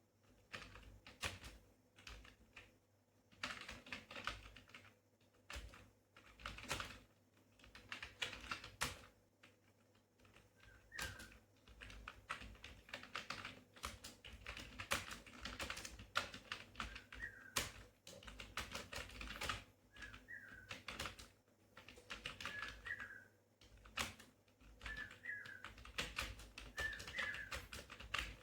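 Computer keyboard keys being typed on continuously during a timed typing test, a dense run of key clicks broken by a few short pauses. A faint short chirp recurs every couple of seconds in the second half.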